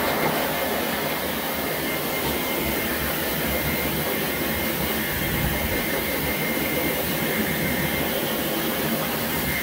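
High-velocity dog grooming dryer running steadily, blowing air through its corrugated hose and nozzle onto a wet dog's coat: an even, loud rush of air with a faint high whine.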